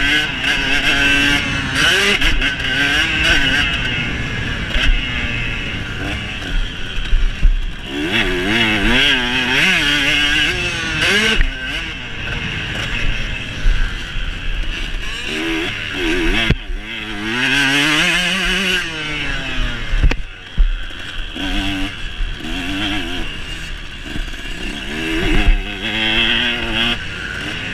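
Motocross dirt bike engine heard from on board while riding, revving up and dropping back again and again as the throttle is worked around the track.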